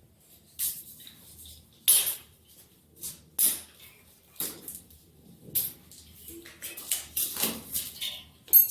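Packing foam and plastic wrap rustling and crinkling in irregular bursts as it is pulled off a new electric bike, with a sharp crackle near the end.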